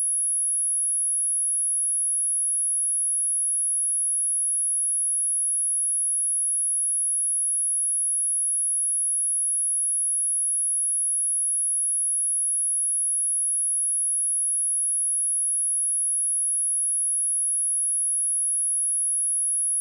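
A steady, high-pitched 10717 Hz sine-wave test tone, one pure tone held without change.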